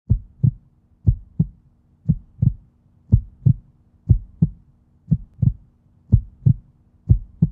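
Heartbeat sound effect: low double thumps, lub-dub, repeating steadily about once a second.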